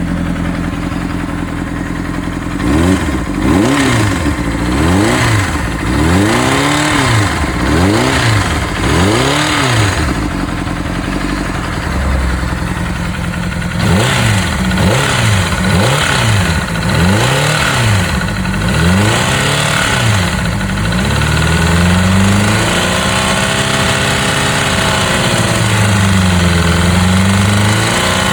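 Honda CBR600RR PC37's inline-four engine idling and being blipped repeatedly, about once a second, with a short spell back at idle in the middle and a few slower, longer revs near the end. The owner hears a strange noise from the engine even with a new cam chain, new pistons and rings, and good oil pressure.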